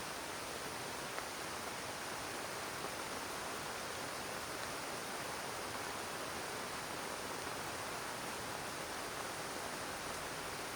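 Heavy rain falling steadily: a dense, even hiss with the odd louder drop.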